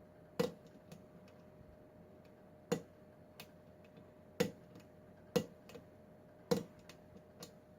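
Metal lock pick working the pins inside a Kwikset pin-tumbler lock: five sharp clicks at uneven spacing, a second or two apart, with fainter clicks between. This is the crunching of pins being pushed without the core turning.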